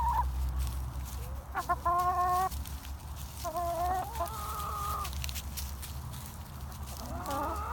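Backyard chickens calling while they feed: three drawn-out, pitched squawking calls a couple of seconds apart, over a steady low hum.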